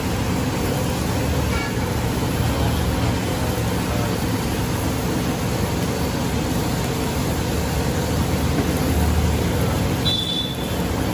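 Steady, loud rumbling background noise with no distinct events.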